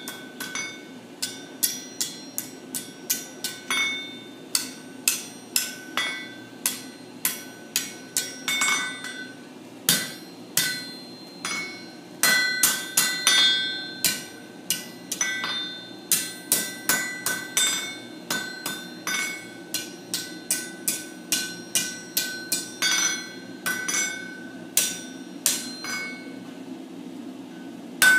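Blacksmith's hand hammer striking a red-hot iron bar on an anvil, bending it into a curve over the horn: a steady run of blows about two a second, each leaving a bright metallic ring. A low steady hum runs underneath.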